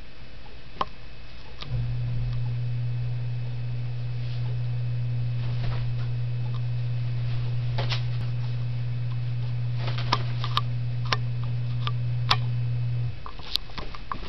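A steady low electrical hum comes on abruptly about two seconds in and cuts off about a second before the end. Scattered light clicks and ticks sound over it, most of them in the later half.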